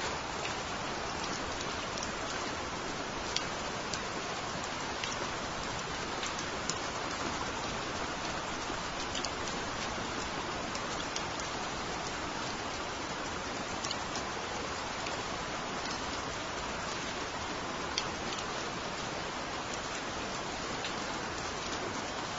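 Steady rain falling, an even hiss with scattered single drops ticking sharply.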